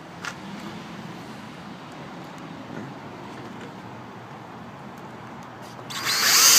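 Steady low background hiss, then about six seconds in a cordless drill runs briefly, a loud whir of under a second as it drives a screw to hold a deadbolt boring jig on the door.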